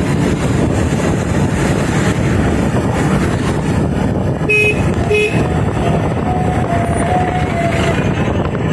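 Steady engine, road and wind noise from a moving vehicle in town traffic. About halfway through, a vehicle horn gives two short toots half a second apart, and a longer, wavering tone follows.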